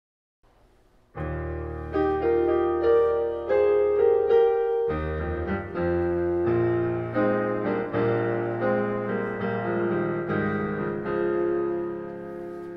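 Piano music, chords with a melody line on top, starting about a second in.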